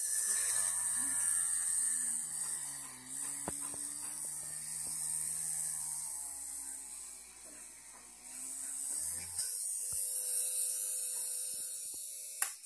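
A small DC motor with a homemade chuck spinning a thin drill bit and drilling into a wooden board: a high-pitched electric whine over a hum whose pitch dips and recovers as it drills. It cuts off near the end.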